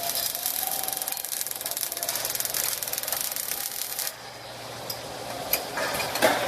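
Robotic welding arc crackling steadily with a dense, rapid sputter, which cuts off sharply about four seconds in; a few short clicks follow.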